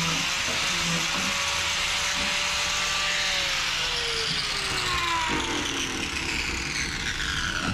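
Electric angle grinder fitted with a sanding disc, running and sanding wood. About three seconds in it is switched off, and its pitch falls as it winds down.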